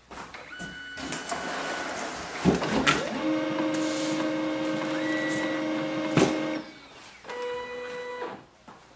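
Pantum M6559NW monochrome laser printer running its power-on warm-up cycle: motors whirring with a few clicks from the mechanism, and a steady hum from about three to six and a half seconds in. After a short pause comes a second, shorter whir near the end.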